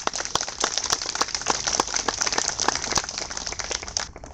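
Applause from a small crowd, many separate hand claps heard distinctly, dying away about four seconds in.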